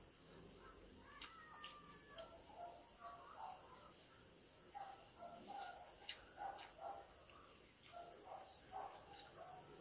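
Faint mouth and hand sounds of people eating with their fingers: scattered short smacks and clicks of chewing and of fingers working rice, over a steady faint high-pitched hiss in the background.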